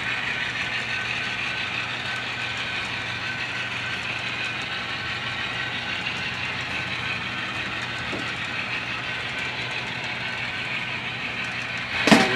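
Model freight train rolling along the layout track: a steady, even hiss and hum of its wheels and motors. A sharp click near the end.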